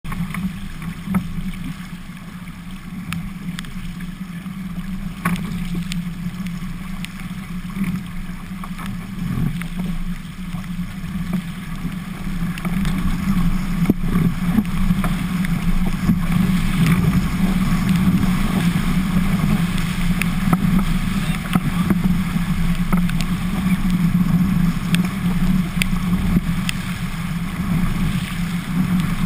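Wind and rushing water around an Albacore sailing dinghy moving fast, heard through a waterproof camera housing, with scattered ticks. The noise grows louder about twelve seconds in.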